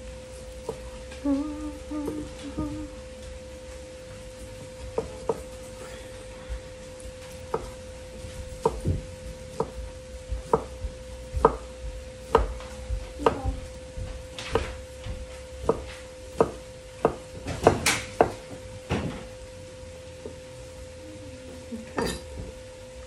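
Knife chopping cooked chicken breast on a cutting board: a run of sharp knocks, about one or two a second, from about five seconds in to near the end, over a steady hum.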